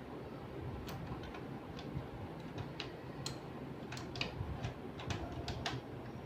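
Irregular light clicks and ticks of a screwdriver and screws as the rotate motor is screwed back into an HP LaserJet Pro M400dn, over a steady low hum.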